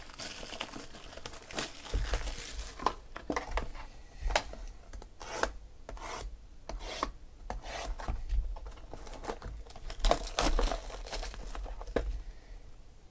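Shrink-wrap plastic crinkling and tearing as it is stripped off a cardboard trading-card box, with a knife blade scraping as it slits the seal. Irregular rustles and scrapes, dying down in the last second or so.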